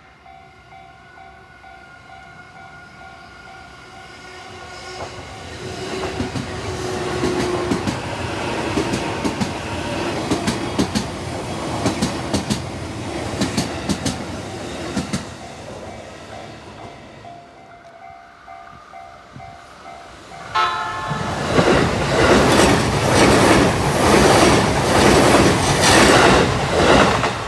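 Level-crossing warning bell ringing while JR East E233-series electric trains pass close by, one after another, their wheels clacking over the rail joints. The second and loudest pass opens with a sudden short horn blast about twenty seconds in.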